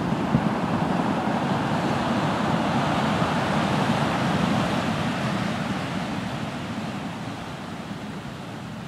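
Ocean surf breaking and washing over a boulder beach: one long surge that builds to about halfway and then slowly fades.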